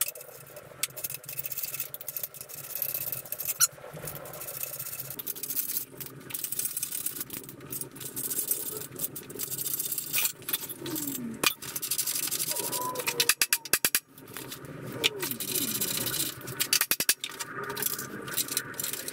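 A socket ratchet and spanners tightening steel nuts and bolts: bursts of quick ratchet clicking, tools clinking against the metal, and a few short squeaks as the nuts turn.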